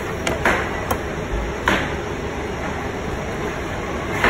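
A spoon stirring thick butter-and-flour roux in a metal pot, with a few short scrapes against the pot in the first two seconds, over a steady background rush.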